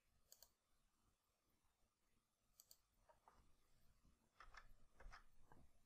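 Near silence, broken by a few faint computer mouse and keyboard clicks, mostly in the second half, as a number is typed into a field.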